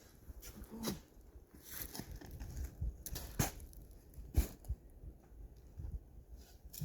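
Faint, scattered knocks and scrapes of hand tools digging into dirt and rock, coming at irregular moments a few times a second at most.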